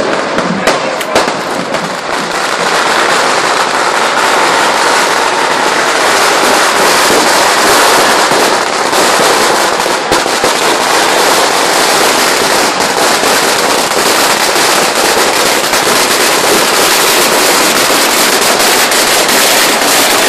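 Strings of Chinese firecrackers going off in a loud, rapid, continuous crackle of tiny bangs, after a few separate cracks in the first couple of seconds.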